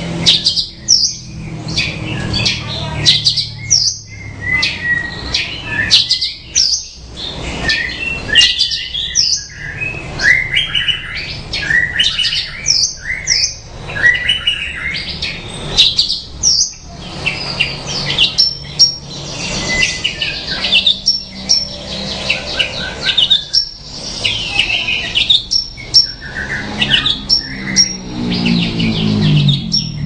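Javan bush lark (branjangan) singing a long, varied song of quick chirps, trills and whistled notes, broken only by brief pauses.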